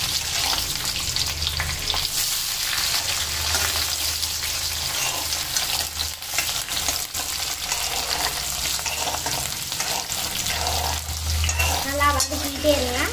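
Chopped shallots and garlic sizzling in hot sesame oil in an aluminium kadai, stirred with a steel ladle that scrapes and taps against the pan.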